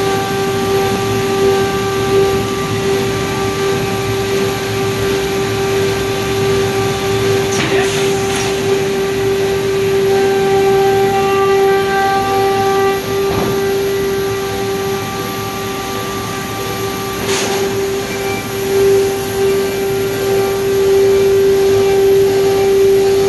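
Corrugated cardboard production line with its automatic paper splicer running: a steady machine drone with one strong constant hum and several fainter steady whines, broken by a few short knocks.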